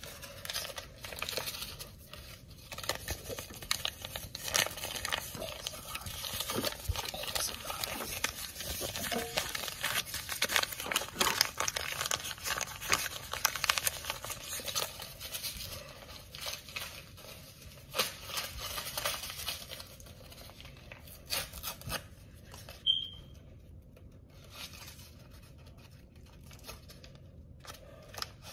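Packaging crinkling and tearing close to the microphone, almost without pause for about the first twenty seconds, then a few scattered rustles and a brief high squeak.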